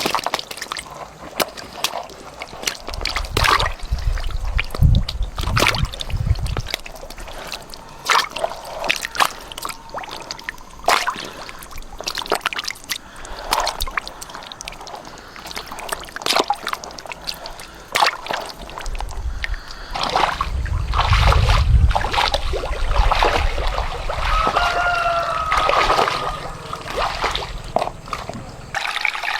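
Water splashing and sloshing in quick, irregular bursts, with a short wavering tone near the end.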